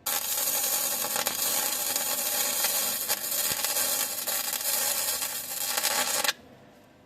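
MIG welder laying a patch weld into a car's chassis sheet metal: a steady, harsh crackling hiss that starts abruptly and cuts off suddenly about six seconds in.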